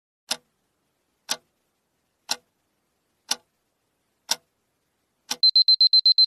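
Countdown timer sound effect: a clock ticks once a second, six times, then a rapid run of high beeps goes off near the end as time runs out.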